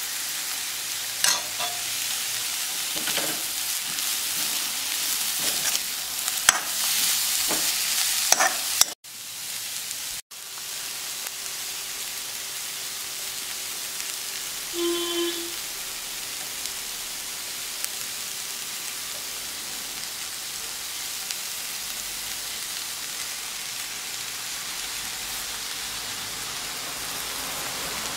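Vegetables sizzling as they stir-fry in a hot wok, with a steel spoon stirring and clicking against the pan during the first nine seconds, then a steady sizzle. The sound drops out briefly twice around nine and ten seconds in.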